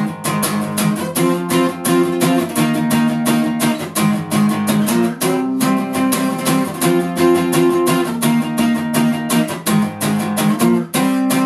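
Instrumental break of a rock song: strummed guitar playing a steady, rhythmic chord pattern with no vocals.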